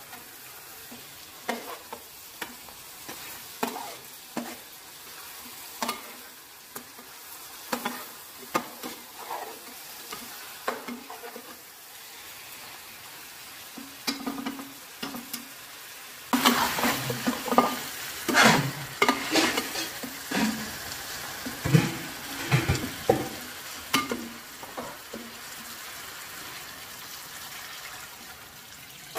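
Meat and tomato pieces frying in oil in a steel pot, sizzling steadily while a metal ladle stirs them, with scattered clicks and scrapes of the ladle on the pot. About halfway through, the sizzling and stirring get louder, with frequent clanks of the spoon against the pot.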